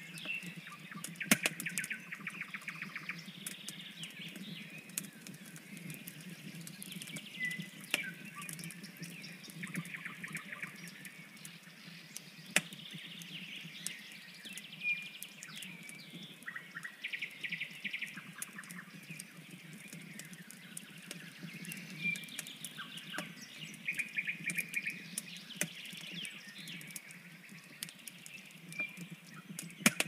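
Small birds singing in repeated trills and chirps, over the crackling and popping of a wood campfire.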